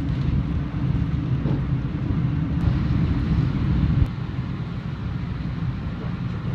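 Steady low rumble of a passenger train running along the tracks, heard from inside the carriage. The level drops a little, suddenly, about four seconds in.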